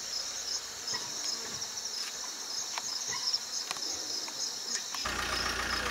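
A high, pulsing chorus of insects. Near the end a low rumble comes in.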